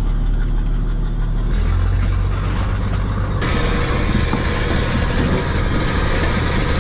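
A fishing trawler's diesel engine running with a steady low hum. A louder hiss joins about halfway through.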